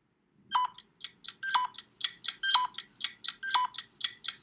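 Electronic ticking countdown sound effect: rapid short clicky beeps, about five a second, with a stronger pitched beep once each second over a faint low hum. It starts about half a second in and marks thinking time for a guessing question.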